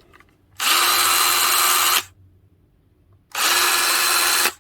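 Hart half-inch cordless drill driver run twice on speed setting 2, its high-speed gear, each run about a second and a half: the motor spins up quickly to a steady whine and stops.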